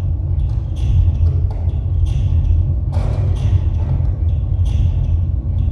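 Amplified scrap-metal kinetic sound sculpture: a motor-driven arm repeatedly strikes and scrapes wires, spoons and metal sheets, about two rattling hits a second, over a loud, constant low rumbling drone.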